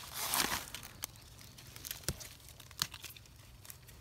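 Dry leaf litter rustling briefly as a hand picks small mushrooms off a rotting log, followed by a few faint, scattered clicks and crackles.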